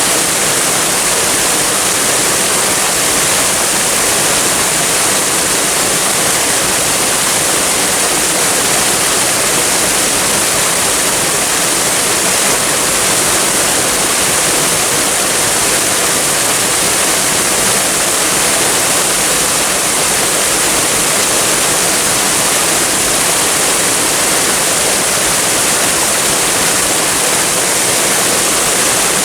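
Waterfall: water falling and splashing in a steady, unbroken rush, with a strong high hiss.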